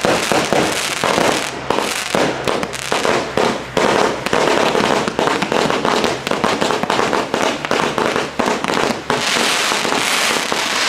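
Fireworks going off in a dense barrage of rapid bangs and crackles, turning into a more continuous hissing crackle near the end.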